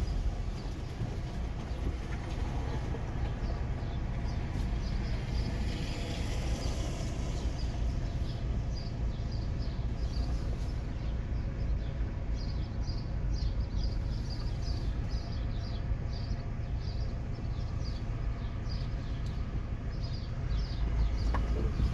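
Steady low rumble of a vehicle under way, with short high chirps repeating through the second half.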